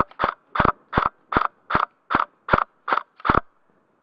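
Airsoft electric gun firing about ten single shots in quick succession, roughly two or three a second, each a sharp doubled click.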